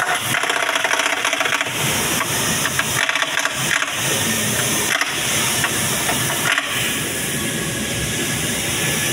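Pneumatic impact wrench rattling in short bursts, mostly in the first four seconds, as it runs down the steering rack bracket bolts at low air pressure. A steady hiss runs underneath.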